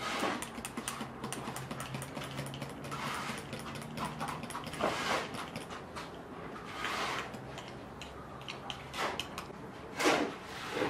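A metal spoon stirring baking soda into a glass of yogurt, clicking and scraping quickly against the glass. About ten seconds in, a louder rush as the yogurt is tipped out into a bowl of flour.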